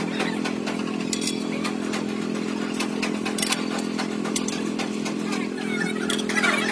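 A motor running steadily with an even, low hum, with a few sharp metallic clicks and a short clatter near the end.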